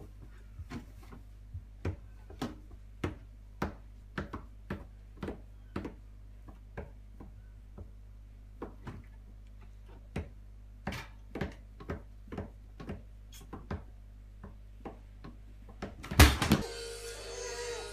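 A long run of light, irregular knocks or taps, about two a second, then one loud thump about sixteen seconds in, after which music starts.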